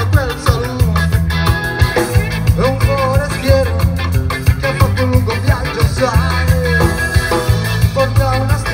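Live ska band playing loudly: drums, a repeating bass line and electric guitar, with a melody line bending on top.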